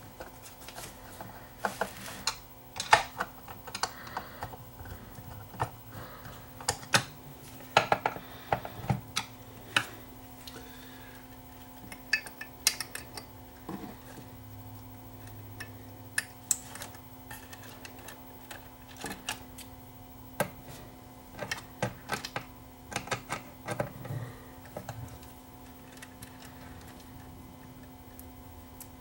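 Irregular light plastic-and-metal clicks and clatter from a Technics SL1400MK2 turntable's tone-arm lift and return mechanism being worked by hand, its gear turned through the cycle. A steady low hum runs underneath, and the clicking dies away near the end.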